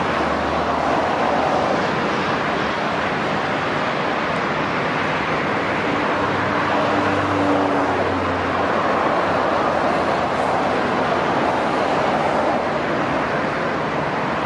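Steady engine and traffic noise with a faint low hum underneath.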